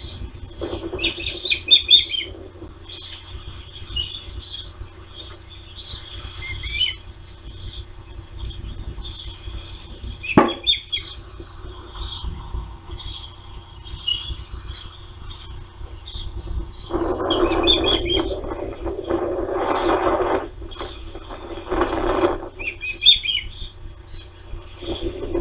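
Ospreys giving a steady series of short, high chirps, about two a second, the food-begging calls heard while one bird is fed beak to beak. A single sharp click comes about ten seconds in, and a louder rushing noise swells for several seconds past the middle.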